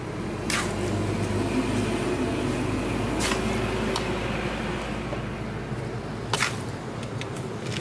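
Hand trowel spreading and patting wet cement over wire mesh: soft wet scraping, with three sharper scrapes about half a second in, midway and near the end, over a steady low hum.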